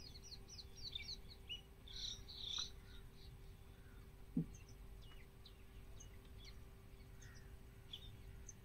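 Faint birdsong: many short, quick chirps, thickest in the first few seconds, over a steady low hum. One brief low sound stands out a little after four seconds in.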